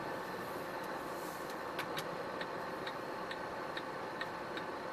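Turn-signal indicator of an Iveco Stralis truck ticking in the cab, switched on about two seconds in and clicking evenly about twice a second, over a steady hum of the running truck.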